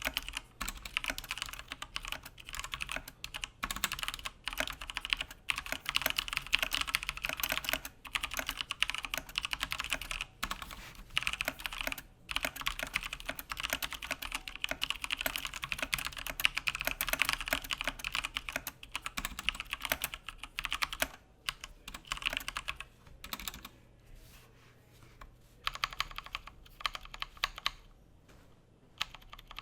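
Typing on a Logitech G Pro X mechanical keyboard with GX Brown tactile switches: fast, continuous keystroke clicks, thinning to shorter bursts with brief pauses in the last several seconds.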